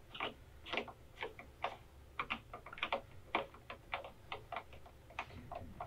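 Hand ratchet clicking in short uneven runs as it tightens the screws holding a motorcycle's plastic battery tray.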